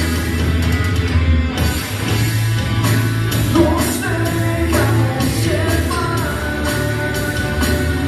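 Live Christian rock band playing: bass, drum kit with cymbals, and guitar, with a voice singing over it.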